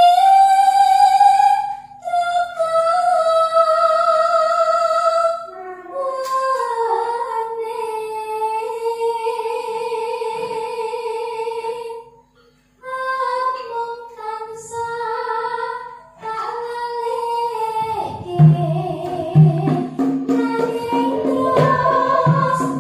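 A Javanese sinden's solo voice singing long, wavering held notes, with short pauses between phrases. About 18 s in, gamelan instruments and a drum come in with a steady beat under the voice.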